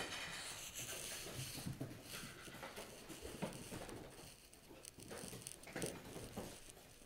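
Dogs' claws clicking and pattering on a hardwood floor as several dogs walk and shuffle about, in quick irregular light taps.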